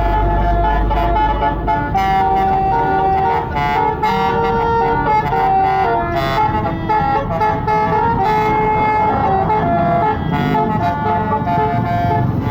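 Bus basuri telolet horn playing a tune, a run of held notes changing pitch one after another. A low engine rumble underneath fades about a second and a half in.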